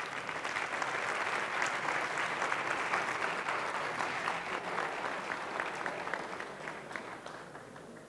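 Audience applauding: a dense patter of clapping that starts at once, is loudest in the first few seconds, and dies away near the end.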